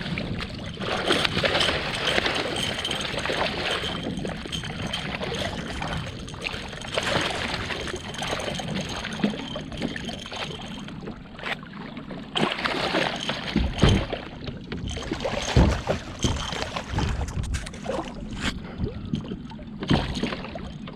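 Choppy lake water lapping and splashing against a kayak hull in strong wind, as a continuous wash of water noise. Two heavy low thumps come about two-thirds of the way through.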